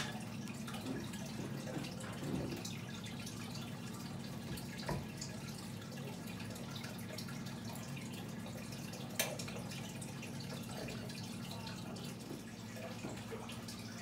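Turtle aquarium filter running: a steady low hum with water trickling and dripping, and a couple of louder drips or clicks, one about five seconds in and one about nine seconds in.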